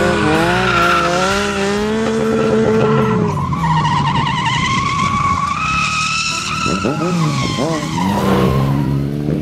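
Sport motorcycle engines revving hard, their pitch holding high and then dropping and climbing again, with a wavering squeal of tyres skidding on asphalt.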